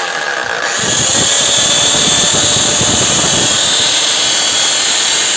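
Makita HM1801 demolition hammer's electric motor running steadily on a test run, with no bit fitted; the whine grows louder and brighter about a second in.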